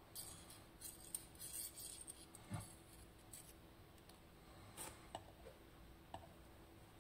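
Faint metallic clicks and light scraping of small pin tumbler lock parts being handled during disassembly. A quick run of ticks and one duller knock come in the first few seconds, then a few single clicks.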